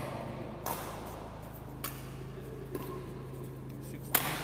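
Badminton rally: rackets strike the shuttlecock about once a second, four sharp hits, the last near the end the loudest, over a steady low hum.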